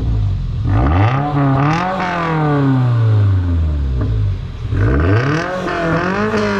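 A 2022 Toyota GR86's 2.4-litre flat-four is free-revved twice while stationary, through a Borla ATAK exhaust with an added front muffler. Each rev climbs quickly and then falls back slowly toward idle; the second one starts near the end.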